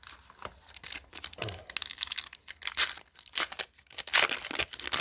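Panini Adrenalyn XL trading-card pack being torn open, its wrapper crinkling in a dense run of crackles and rips, loudest about three and four seconds in.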